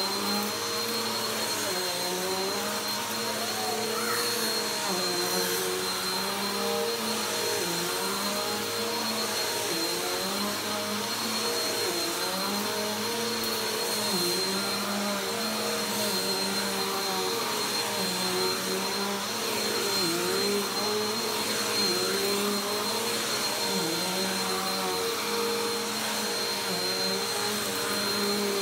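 Upright bagless vacuum cleaner running on carpet, a steady motor hum with a high whine, its pitch dipping briefly every couple of seconds as it is pushed back and forth.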